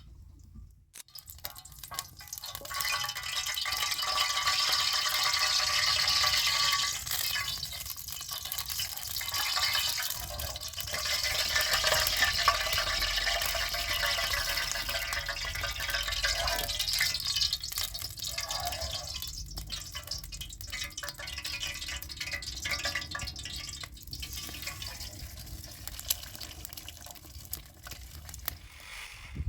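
Rapid stirring and scraping of eggs being beaten with a utensil for an omelette. It goes on in spells with short lulls.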